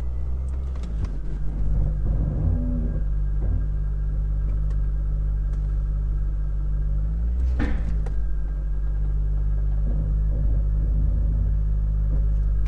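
A 2001 Corvette C5's V8 running low and steady on a short drive, heard from inside the car, with a brief thump about halfway through.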